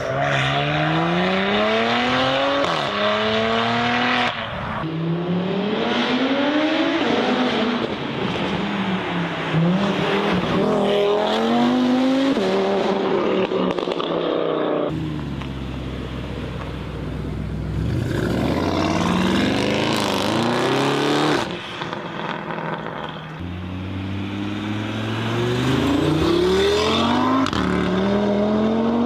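Audi car engines accelerating hard through the gears: each time the pitch climbs, then drops back at an upshift and climbs again. The sound cuts abruptly from one car to another several times.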